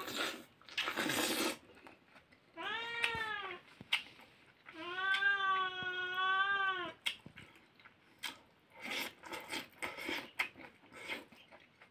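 A cat meowing twice: a short, arched meow about two and a half seconds in, then a longer, held meow about five seconds in. Short noises from eating by hand come before and after the meows.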